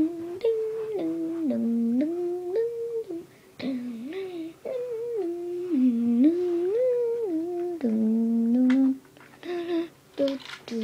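A person humming a tune: held notes stepping up and down in short phrases, with brief pauses between the phrases.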